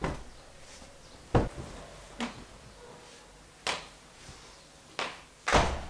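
Bed linen being handled and shaken out: a series of about six short, sharp fabric flaps and whooshes. The loudest and longest comes near the end, as a blanket is flapped out over the bed.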